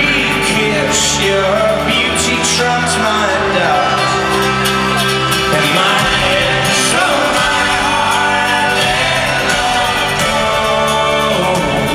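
Live folk-rock band playing, with a voice singing over sustained chords.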